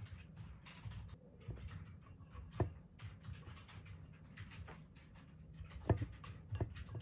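A cat's paw knocking and scraping against a metal bowl-shaped lamp shade, with a few sharp knocks about two and a half seconds in and twice near the end, over a low rumble.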